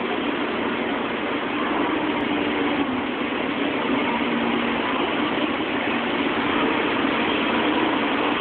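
A 300 series Shinkansen train pulling away from the platform: steady running noise of its motors and wheels with a low hum, growing slightly louder as it gathers speed.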